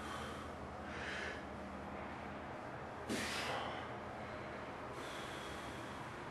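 A man breathing hard under strain while lifting and holding a heavy blob and anvil by grip: a short breath about a second in, then a sharper, stronger exhale about three seconds in, over a steady low hum.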